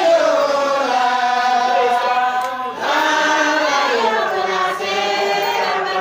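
A group of voices singing a religious chant together in long, held notes, the melody sliding downward; the singing breaks off briefly about three seconds in and a new phrase begins.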